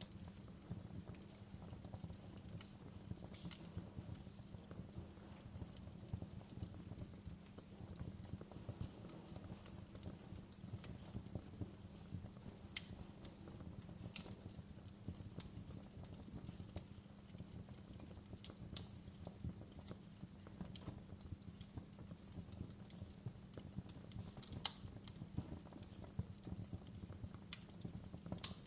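Fireplace fire crackling: a dense stream of small crackles over a low steady rumble, broken by a few sharper, louder pops.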